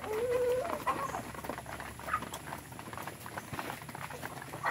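Chickens pecking feed from a wooden trough: many rapid, irregular beak taps, with a short hen call that rises in pitch in the first second.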